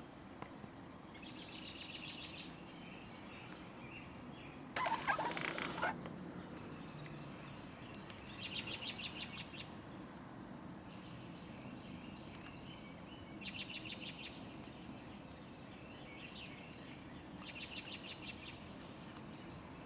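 Pileated woodpecker calling: four series of rapid, evenly spaced high notes, each about a second long. A louder, harsher burst comes about five seconds in.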